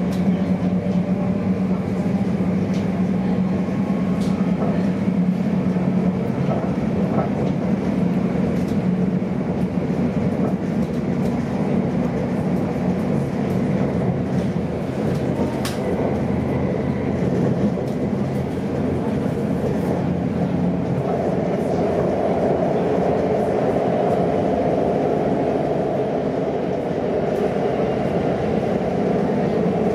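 Inside a TfL Rail Class 345 electric train running at speed: steady rumble of wheels on track with a low electric hum from the traction equipment and a few faint clicks over rail joints.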